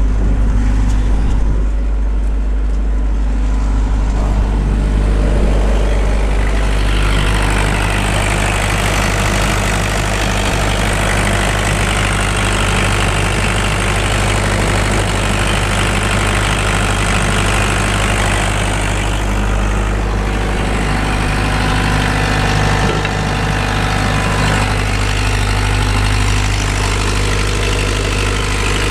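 Case CX75SR excavator's diesel engine idling steadily while it warms up. From about 7 to 19 seconds in, a loud steady hiss sits over the idle, from the muffler being welded back on.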